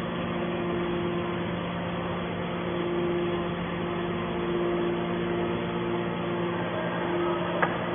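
Steel can baler's motor running with a steady hum, with a single sharp click near the end.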